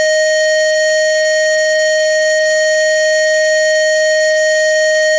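A loud, steady electronic alert tone held at one unchanging pitch, with a harsh, buzzy edge, like an emergency broadcast warning tone.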